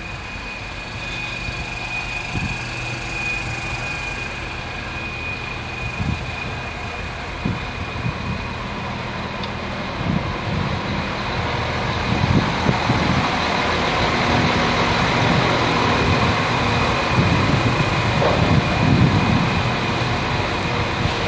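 Irish Rail InterCity diesel railcar's underfloor engines running at the platform. The rumble grows louder and heavier, with a steady high whine that fades after the first few seconds.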